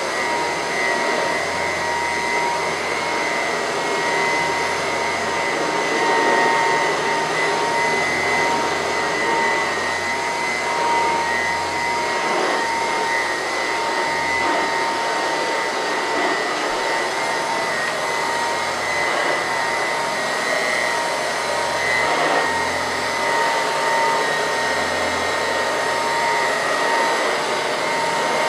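Restored early-1940s Royal Model 131 vacuum cleaner running steadily, its motor making a constant high whine over the rush of air.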